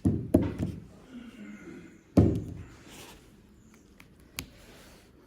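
Knocks from a cable and devices being handled on a table: two dull thunks at the start, a louder thunk about two seconds in, and a short sharp tap near the end.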